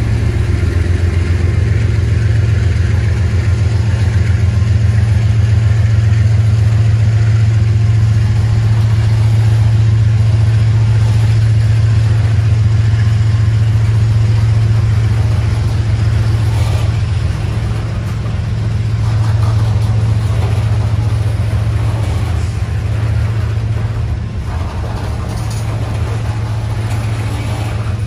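Diesel-electric freight locomotives running with a steady, deep engine drone and a fast low pulse. The drone eases slightly about two-thirds of the way through.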